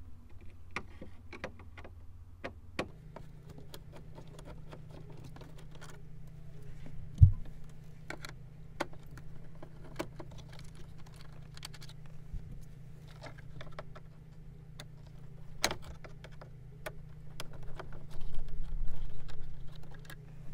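Screwdriver and hands working the plastic gauge-cluster bezel of a 1992–95 Honda Civic dash: scattered small clicks and light rattles as its screws are backed out. A dull thump comes about seven seconds in, and the plastic handling grows louder near the end.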